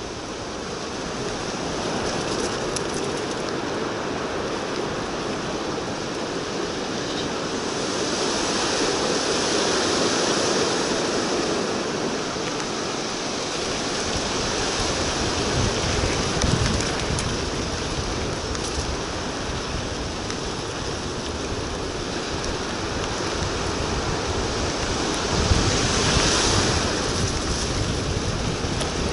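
Wind rushing over the microphone of a mountain bike riding down a muddy dirt track: a steady rush, with low buffeting getting stronger about halfway through.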